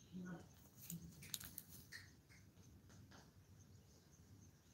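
Near silence: faint outdoor background with a few soft clicks and rustles about a second in.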